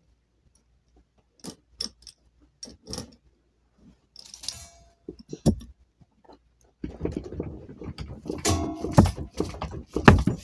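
Scattered sharp clicks and knocks of small hard objects being handled, with a thump about five seconds in. From about seven seconds in it becomes a dense clatter with rustling.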